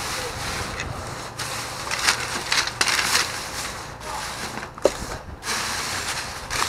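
Thin plastic bags rustling and crinkling in irregular bursts as a hand rummages through them, with one sharp tap a little before five seconds in.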